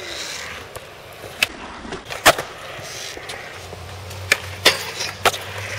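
Skateboard wheels rolling on concrete, with several sharp clacks of the board popping and landing, the loudest about two seconds in. A low steady hum comes in over the last couple of seconds.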